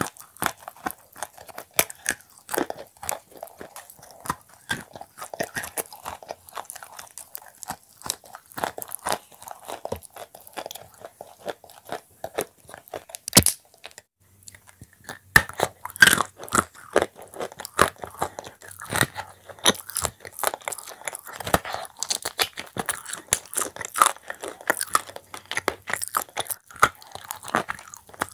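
Close-miked crunching and chewing as shortbread cookies dipped in a soft paste are bitten and eaten, with many sharp crisp crackles. There is a brief break about fourteen seconds in, then the crunching goes on.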